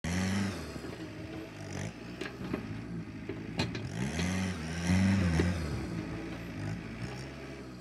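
Kubota tractor's diesel engine running under load as its front dozer blade pushes soil, revving up about four seconds in and easing back a second or so later.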